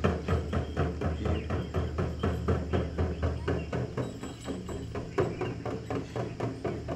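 Drum beaten in a fast, even rhythm for a jhakri shaman dance, about five beats a second without a break.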